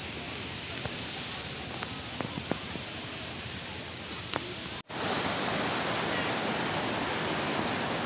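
Steady rushing of a waterfall, an even hiss of falling water with a few faint clicks over it. After a brief break about five seconds in, it comes back louder and steadier.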